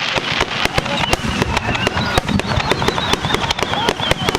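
Fireworks finale barrage: a dense, rapid run of bangs and crackling pops, with a thin high wavering whistle sounding over it and slowly dropping in pitch.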